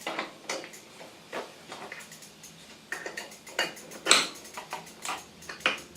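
Irregular metallic clicks and clinks, the loudest about four seconds in: an adjustable spanner working a crank removal tool threaded into a bicycle crank arm.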